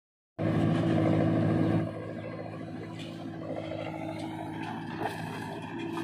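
Diesel engines of a JCB 3DX backhoe loader working its bucket and a Swaraj tractor standing beside it, running with a steady hum. The sound is loud for the first second and a half, then quieter and even, with a few light knocks near the end as earth is tipped into the tractor trolley.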